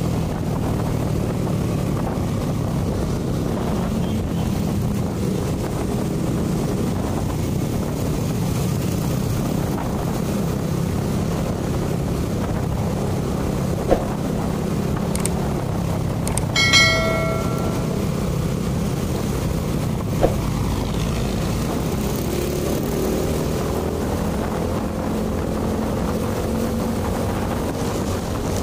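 Motor scooter engine running steadily while riding in traffic, with wind buffeting the microphone. About two-thirds of the way through, a horn sounds for about a second, and two sharp clicks come a few seconds apart.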